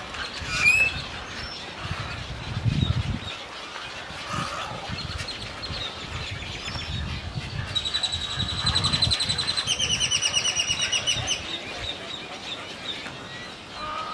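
Mixed calls from a nesting waterbird colony. A rapid, evenly pulsed high trill runs for about three and a half seconds in the middle and drops to a lower pitch partway through.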